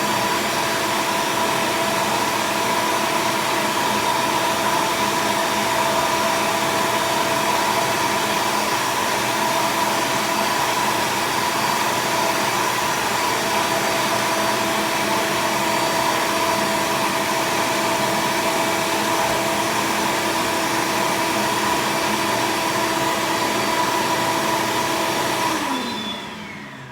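Vacuum cleaner running steadily over a laptop keyboard, sucking up dust from between the keys. Near the end it is switched off and its pitch winds down as the motor slows.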